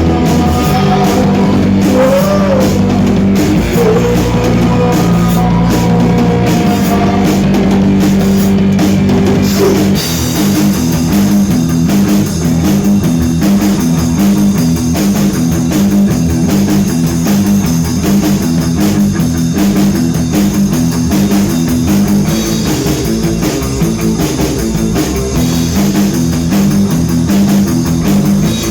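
Loud rock music with drums and guitar. For about the first ten seconds the notes are held and bent, then the band settles into a fast, repeating riff.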